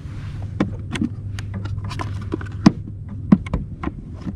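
Irregular clicks and knocks of fishing gear being handled aboard a kayak, with two louder knocks a little past the middle, over a low steady hum.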